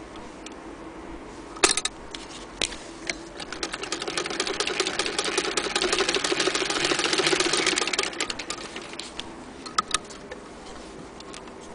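Singer Model 66K hand-crank sewing machine stitching. A sharp click comes a little under two seconds in, then the needle mechanism runs in a fast, even clatter that grows louder for several seconds and dies away, with a couple of clicks near the end.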